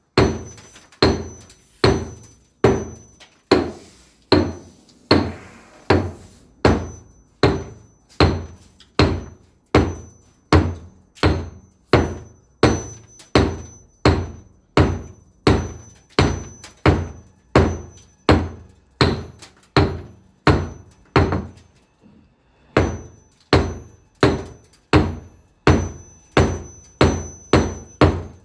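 A hammer striking over and over at a steady pace, about one and a half blows a second, each a sharp knock with a short ring. After a brief pause about three quarters of the way through, the blows come a little quicker.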